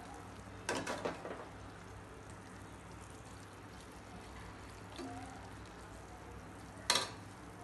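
Steel spoon scraping and stirring beef masala in a non-stick cooking pot, with short scrapes about a second in and again near the end.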